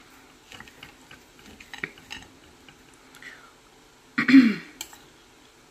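Faint clicks and scrapes of a knife and fork on a plate while cutting meat, then a person clears their throat once, loudly, about four seconds in.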